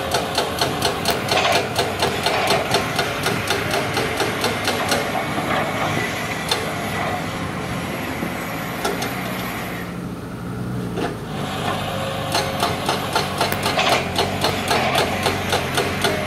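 Radio-controlled model excavator running as it digs and loads, a steady mechanical sound with rapid regular ticking, about four or five ticks a second, that eases off midway and picks up again near the end.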